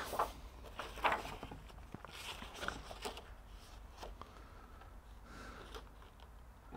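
Pages of a spiral-bound paper manual being turned and handled: a few soft rustles, mostly in the first three seconds, then quieter handling.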